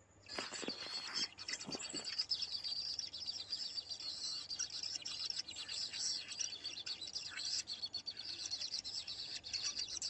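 Kingfisher nestlings giving dense, rapid, high-pitched begging chirps in the nest burrow, starting abruptly just after the beginning, with a few low scuffling knocks in the first two seconds.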